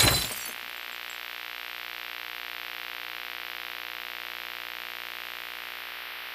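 A sudden loud hit that dies away within half a second, giving way to a steady electronic drone of several held tones under a hiss, with a slight fast flutter in level.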